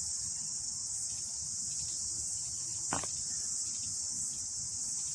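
Steady, high-pitched chirring of insects in the garden, an unbroken summer insect chorus, with one light tap about three seconds in.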